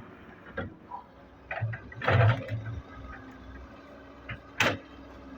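Excavator and tractor diesel engines running steadily under a series of irregular clunks and thuds, the loudest cluster about two seconds in and a sharp bang near the end: the excavator's bucket loading soil into a steel tractor trolley.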